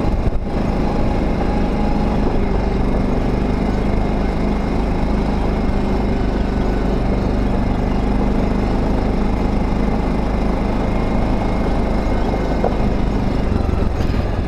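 ATV engine running steadily under way on a dirt track, heard from a camera mounted on the quad.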